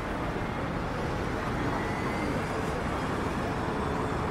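Steady road traffic noise of a city street, an even hum of passing vehicles.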